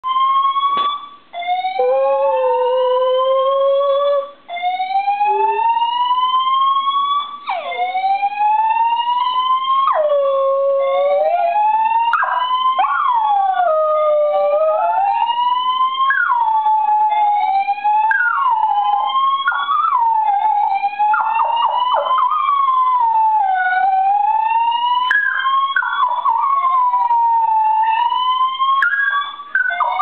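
Building fire alarm sounding a repeating rising sweep, each sweep climbing for about three seconds and then restarting. A dachshund howls along with it in long, wavering howls, which grow more frequent after the first ten seconds.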